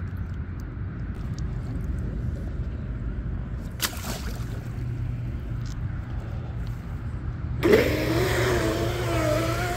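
Twin electric motors of a DIY RC speed boat spinning up with a wavering whine as the boat speeds off, starting sharply near the end and loudest at its start. Earlier there is a short splash about four seconds in, when the boat is set into the water, over a low steady rumble.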